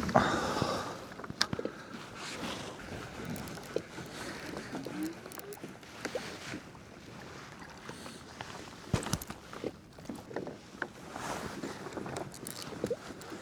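Water sloshing against a kayak hull, with scattered knocks and clicks, strongest about 9 seconds in.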